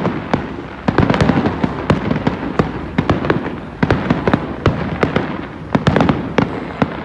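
Fireworks display: a rapid, irregular string of bangs, pops and crackles from shells bursting, several a second.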